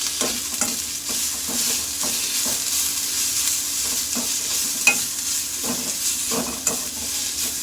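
Onions with garlic-ginger paste and ground spices sizzling in a pan as they are stirred and fried, a steady hiss with scattered scrapes and taps of the stirring utensil on the pan, one sharper tap about five seconds in. This is the masala being fried down with the onions.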